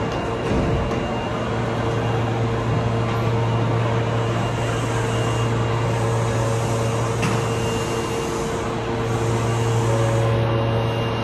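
Osaka Metro Tanimachi Line subway train standing at the platform with its doors open, its onboard equipment and air conditioning giving a steady low hum with a fainter higher tone.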